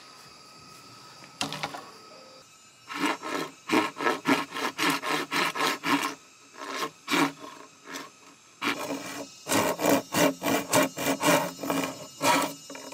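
A hand tool rasping back and forth on bamboo in quick, even strokes, about three to four a second. The strokes come in two main runs with a short pause between them.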